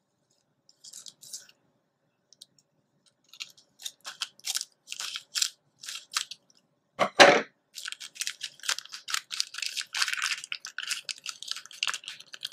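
Paper and plastic being handled: scattered crinkles and rustles that thicken as it goes, a single thump about seven seconds in, then steady crinkling.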